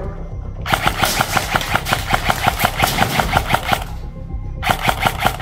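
Airsoft rifle firing on full auto: a rapid rattling burst of about three seconds, then a second short burst near the end.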